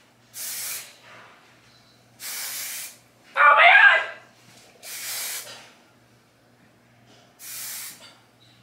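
Amika Top Gloss Shine Spray aerosol can sprayed onto hair in four short hissing bursts, each about half a second to a second long and evenly spaced. About three and a half seconds in, between the second and third bursts, comes a brief, louder vocal sound.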